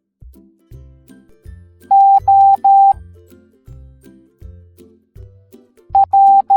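Morse code beeps, a steady tone keyed on and off: three long dashes about two seconds in, the letter O. Near the end a short dot and a dash start, the beginning of P. Light children's background music with a bouncing bass line plays underneath.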